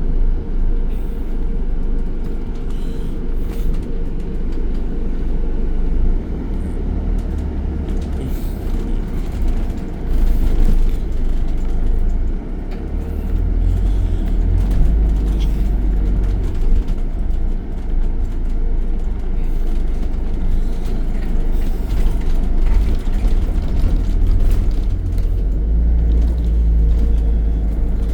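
Electric cooling fan of an Alexander Dennis Enviro 400H hybrid double-decker bus running, a loud steady hum with a deep rumble underneath that swells several times.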